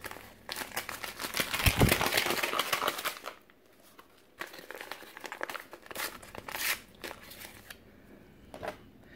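A paper packet of graham cracker crumbs being torn open and handled: dense crinkling and tearing for about three seconds, then scattered fainter crinkles.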